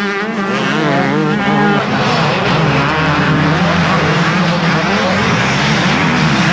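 Motocross motorcycle engines racing on the track, their pitch rising and falling quickly in the first couple of seconds as the throttle is worked, then blending into a denser, steadier engine mix.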